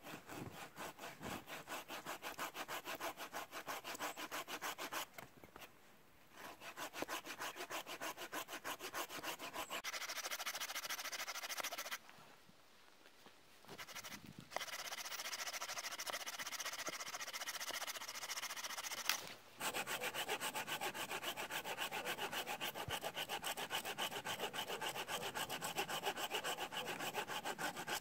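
Folding hand saw cutting through a dead-standing hardwood branch in quick, even back-and-forth strokes, stopping briefly twice.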